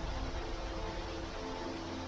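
Steady rushing noise of a waterfall, with a low rumble of wind on the microphone beneath it.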